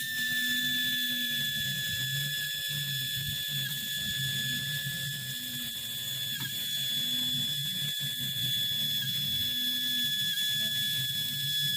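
Starma 150 W CO2 laser engraving and cutting machine running: a steady high whine, with a low motor hum that rises and falls in pitch every second or so as the head moves, and many small ticks.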